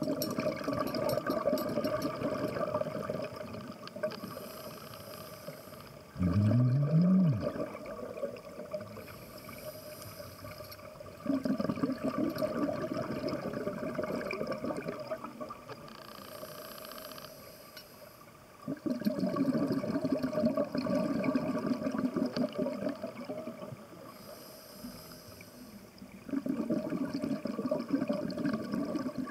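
Scuba diver breathing through a regulator underwater: bursts of exhaled bubbles about every seven seconds, with a short hiss of inhaled air between them. One exhale, about six seconds in, starts with a brief rising buzz.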